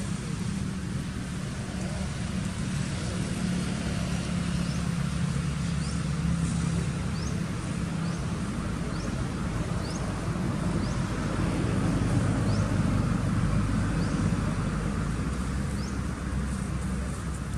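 Steady low rumble of a motor vehicle, swelling about twelve seconds in, with faint short rising chirps repeating about once a second above it.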